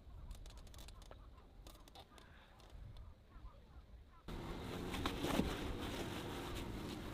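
Faint outdoor ambience with scattered small bird chirps and light clicks. About four seconds in it cuts abruptly to a louder, rustling outdoor background, with a single sharp knock about a second later.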